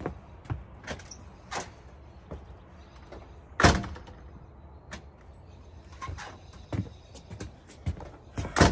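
Plastic lids and parts of a portable twin-tub washing machine being handled: scattered clunks and clicks, two short scraping slides with a faint high squeak, and one loud knock about a third of the way through.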